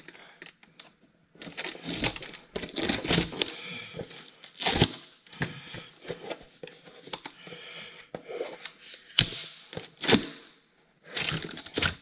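A cardboard product box being opened by hand: a pointed tool scoring through the tape seal, then the cardboard sleeve scraping as it is slid off the inner box, with rustling and a few sharp knocks of cardboard on the sill.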